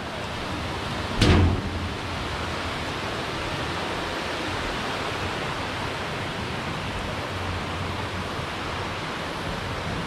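Steady rush of a river running over rocks, with one thump a little over a second in.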